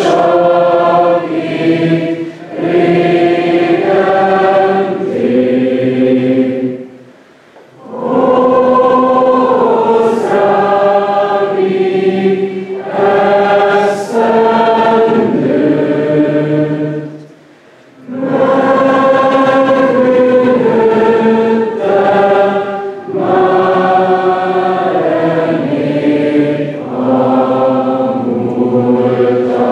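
A choir singing a slow song in long held notes, breaking off briefly twice between phrases.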